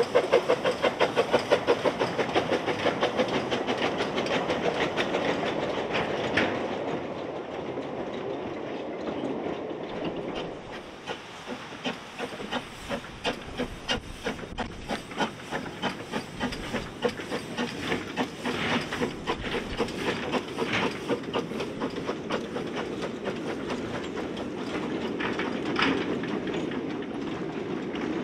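Narrow-gauge steam locomotive Welsh Pony, a George England 0-4-0 saddle tank, working past with rapid, even exhaust beats and steam hiss that fade over the first several seconds. From about ten seconds in, a train of small four-wheeled goods wagons rolls by, wheels clicking steadily over the rail joints.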